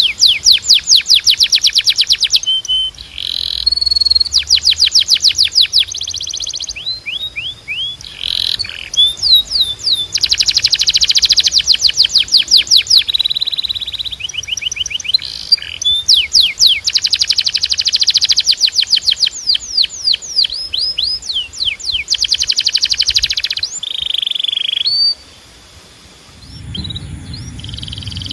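Canary singing: long, fast trills of rapidly repeated down-sweeping notes, broken by brief pauses between phrases. The song stops briefly near the end, and a low rumble comes in as it resumes.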